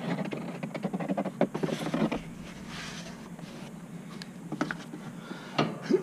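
Handling noise from hands working overhead in an attic: rustling, scraping and sharp knocks in the first two seconds and again near the end, over a steady low hum.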